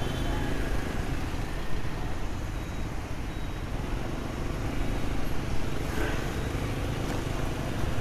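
City street traffic heard from a moving motorbike: a steady rumble of engines and road noise from motorbikes and cars around it.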